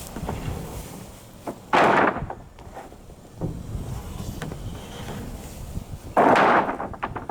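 Two loud clattering crashes about four seconds apart, with a few lighter knocks between them, as loads are dropped off a truck while it is being unloaded.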